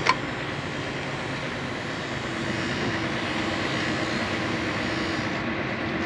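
Steady diesel engine noise from a truck-mounted concrete boom pump running, with a faint steady hum and a single sharp click just after the start.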